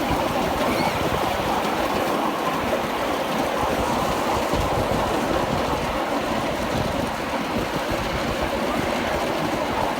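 Miniature railway train running along the track, heard from a riding car: a steady rumble and rattle of wheels on rails that keeps up without letting off.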